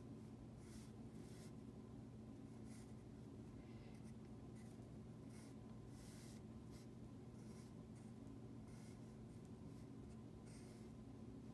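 Faint scratching of a graphite pencil sketching on drawing paper, in short, irregular strokes about every second or so, over a low steady hum.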